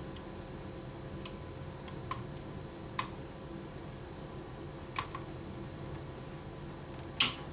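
A handful of small sharp metallic clicks, irregularly spaced a second or two apart, the loudest near the end: a small Allen wrench clicking against tiny screws as they are backed out, over a faint steady hum.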